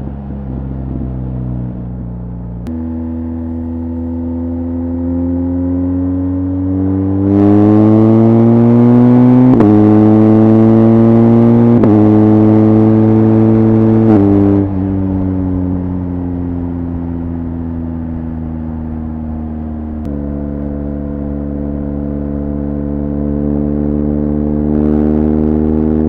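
BMW R1200GS Adventure's boxer-twin engine through an Akrapovic HP exhaust, heard from the rider's seat. It runs at steady motorway speed, then about seven seconds in it accelerates hard, louder and rising in pitch through two quick gear changes. Around halfway it eases off back to a steady cruise.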